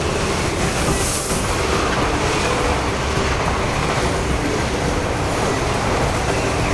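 Yellow double-deck NS intercity train running through an underground station at speed without stopping: a steady loud rush of wheels and air, with a brief hiss about a second in.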